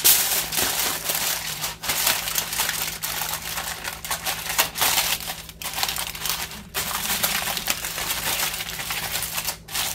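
Aluminium foil crinkling and crackling as hands press and crimp it down over a slow cooker crock, with a few brief pauses.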